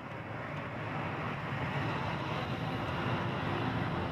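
Car driving, heard from inside the cabin: a steady hum of engine and road noise that fades in and grows louder over the first second or two, then holds steady.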